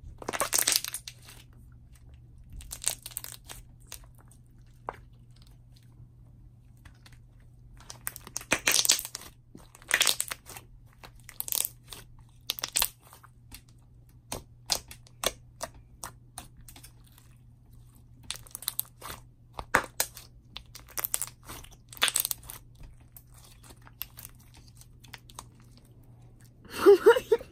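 Thick, glossy slime being pressed, poked and stretched by hand, giving irregular bursts of small pops and crackles with short quiet gaps between them. The loudest burst comes near the end.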